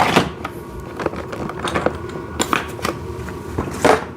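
Hard plastic toy parts being handled and set down: a string of separate clicks and knocks.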